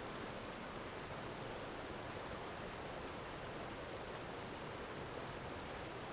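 Flowing river water: a steady, even rush with no distinct splashes or other events.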